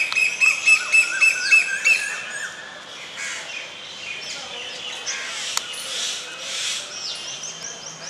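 Birds chirping in the trees: a loud call repeated about three to four times a second for the first two seconds, then quieter scattered high chirps, with a quick run of high falling notes near the end.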